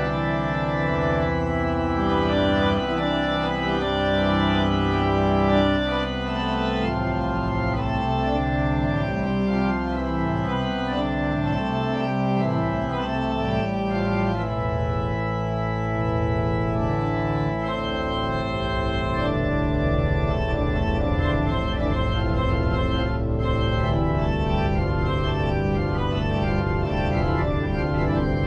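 Organ music: sustained chords with a deep bass line, changing chord every second or so, in a dark horror-film style.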